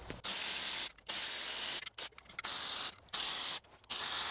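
Power ratchet spinning out the 12 mm oil pan perimeter bolts, running in short bursts of about half a second to a second each, with brief pauses between bolts.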